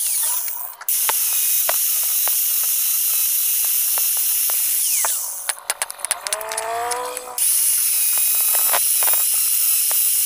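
Electric angle grinder grinding rivet heads off a motorcycle clutch housing: a loud, steady hiss of the disc on metal. It stops about five seconds in for a run of metal clicks and scrapes as a screwdriver probes the rivet, then the grinder spins back up and grinds again.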